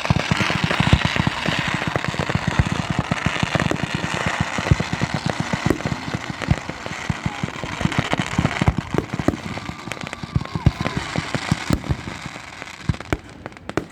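Fireworks display: a dense, rapid volley of bangs with crackling shells, growing sparser and fainter toward the end.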